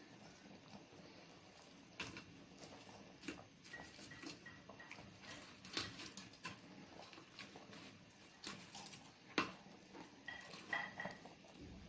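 Kadhi boiling in a steel pot: faint, irregular pops and clicks of bursting bubbles, with a few sharper ones every few seconds.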